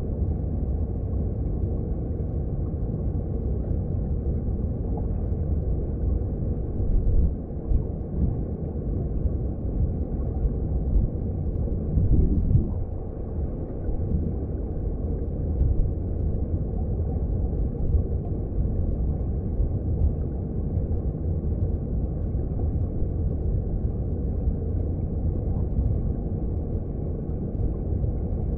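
Mountain stream water heard from underwater: a steady, low, muffled rumble of flowing current, with a few brief louder surges.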